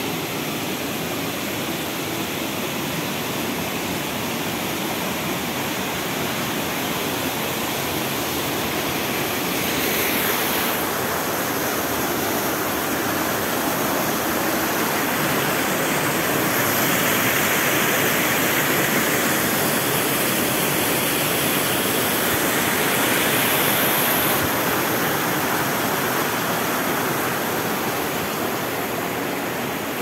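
A waterfall's falling water, rushing steadily and growing somewhat louder through the middle stretch.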